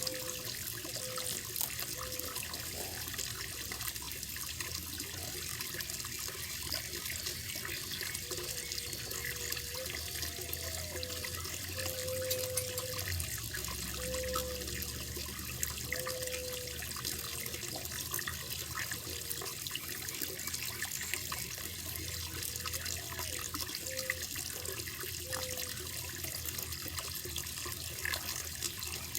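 Running water splashing and trickling steadily into a koi pond.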